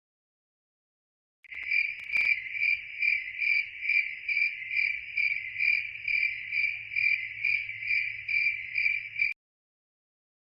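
A cricket chirping steadily, about two to three chirps a second, as one even high-pitched pulsing tone. It starts after about a second and a half of silence and stops shortly before the end, with one faint click soon after it begins.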